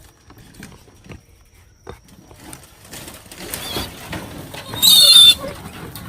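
A wild piglet gives one loud, high-pitched squeal lasting about half a second, roughly five seconds in, after a quiet stretch with faint rustling.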